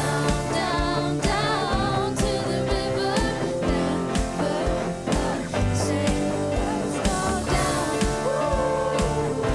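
Live church worship band playing: a steady drum beat under sustained guitar and keyboard chords, with a wavering lead melody and some singing.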